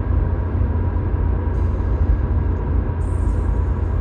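Road and engine noise inside a moving car's cabin: a steady low rumble, with a hiss that comes in about a second and a half in and grows louder near the end.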